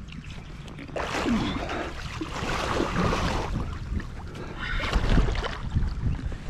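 A hooked wels catfish thrashing at the surface beside a belly boat, splashing water in two spells, the first and longer one starting about a second in.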